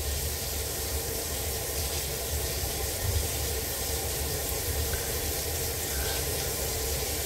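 Kitchen faucet running water steadily into the sink and down the drain, an even hiss, during a test for a leak at the sink drain.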